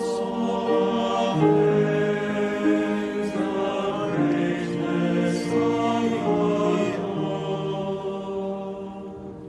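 Closing music of slow choral singing in held, chant-like notes that fades away over the last few seconds.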